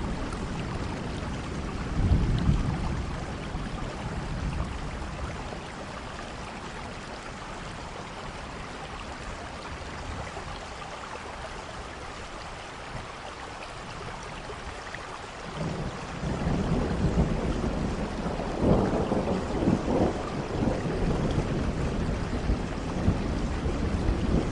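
Steady rain falling, with deep low rumbles swelling about two seconds in and again from about two-thirds of the way through; the middle stretch is quieter.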